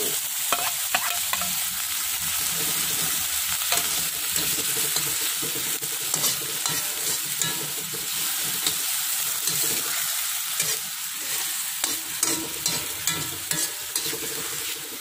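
Sliced chillies and shallots sizzling in a wok with a little water while a metal spatula stirs and scrapes the pan, with frequent clinks of metal on metal.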